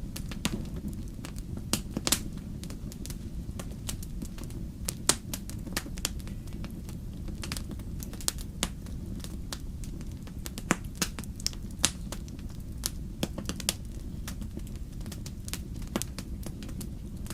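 Wood fire crackling, with irregular sharp pops and snaps over a steady low rumble; a few pops stand out louder.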